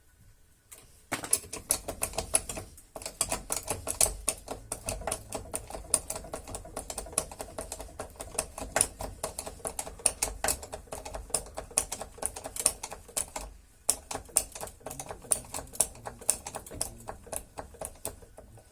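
Rapid, irregular metallic clicking, many clicks a second, starting about a second in with two short breaks, from tools working under a car as the suspension arm is jacked up to level the anti-roll bar and take load off the stabilizer link bolt.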